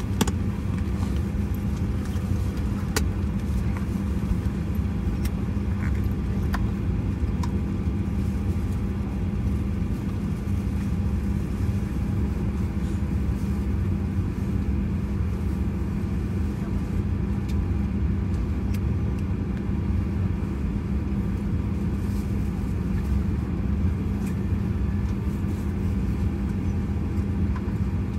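Steady low rumble and hum inside the cabin of a Boeing 737-800 standing still at the gate, the sound of its air-conditioning and ventilation running, with a few faint clicks.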